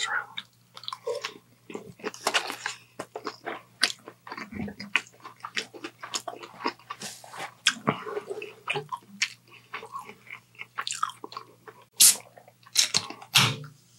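Close-miked eating of chow mein noodles and chicken: irregular wet chewing and biting sounds with some crunch, over a faint steady electrical hum. A few louder, sharper clicks come near the end.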